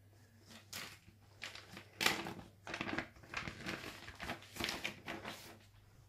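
Thin plastic bag crinkling and rustling in a run of irregular bursts as a tablet keyboard cover is pulled out of it.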